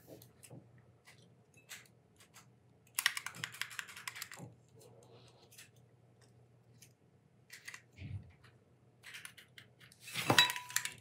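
Faint clicks and light rattling of small die-cast metal and plastic kit parts being handled, with a quick run of clicks about three seconds in and a brief louder sound near the end.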